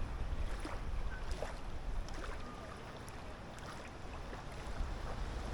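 Wind buffeting the microphone over the rush of surf, heavier in the first half and easing about halfway through.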